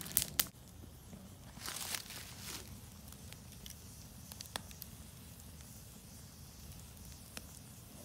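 Wood campfire burning: a low steady rush of flame with a few sharp crackling pops from the burning logs, and a brief rustling hiss about two seconds in.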